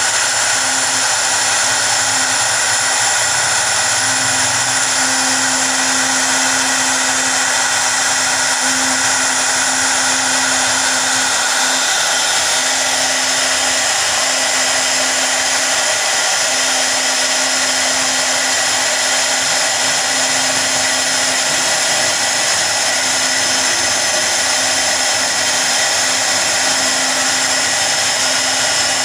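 CNC router spindle running at a steady high whine while its bit carves lettering into a wood panel.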